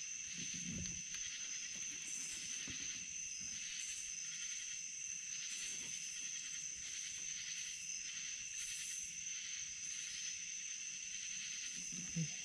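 Night insect chorus: a steady high-pitched trill, with higher pulsing calls coming and going every second or two. A brief low thump sounds near the end.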